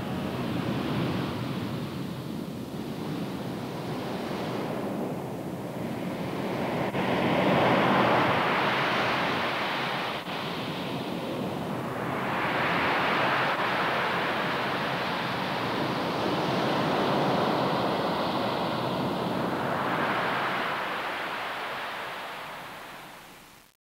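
A rushing, surf-like noise from the soundtrack that swells and ebbs in slow waves a few seconds apart, then fades out just before the end.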